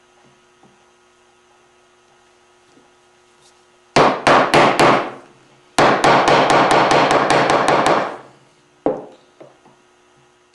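Chisel being struck with a mallet to chop dovetail waste in hard maple: about five blows some four seconds in, then a quick run of a dozen or so rapid strikes, and one last knock near the end.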